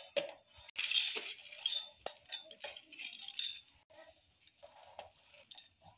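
Roasted peanuts and other masala ingredients tipped from a steel plate into a steel mixer-grinder jar, rattling against the jar in a few short bursts, with a sharp clink about two seconds in.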